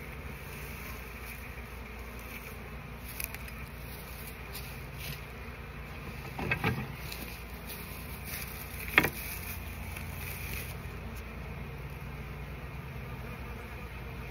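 Honey bee colony buzzing steadily, with a few short knocks from handling. The sharpest knock comes about nine seconds in.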